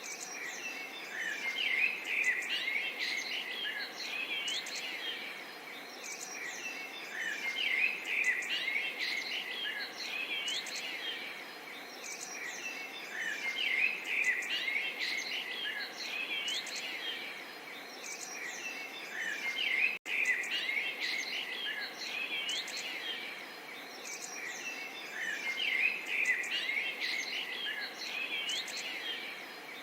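A chorus of small songbirds chirping and trilling continuously in many overlapping short calls, over a soft, steady babble of water. The sound cuts out for an instant about two-thirds of the way through.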